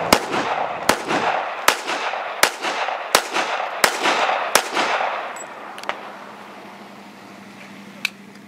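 A handgun fired in quick, even succession, about seven shots roughly 0.7 s apart, each crack followed by an echo that trails off. Two fainter sharp cracks follow later on.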